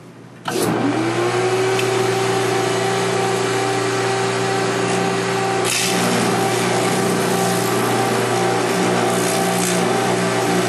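Jeweler's bench polishing motor spinning up about half a second in, its hum rising in pitch and then holding steady, while a 600-grit abrasive works the inside of a platinum ring. The sound changes abruptly about six seconds in.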